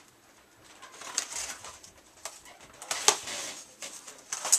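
Cardboard LP box being opened by hand: scraping and rustling of cardboard with a few sharp snaps and tears.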